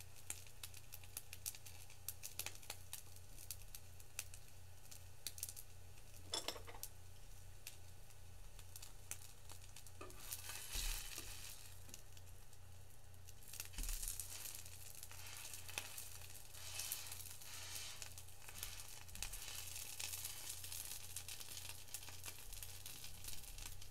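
Rice balls sizzling and crackling on a hot electric skillet, with a steady low electrical hum underneath. The sizzle grows louder for a few seconds about ten seconds in and again around fourteen seconds, as a rice ball is turned.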